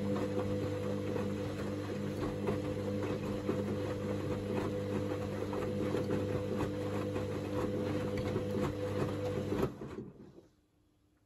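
Hoover DynamicNext front-loading washing machine in its main wash: the drum motor hums steadily while the wet load tumbles with many small knocks. About ten seconds in, the motor stops and the drum winds down to near silence within about a second, a pause in the wash rotation.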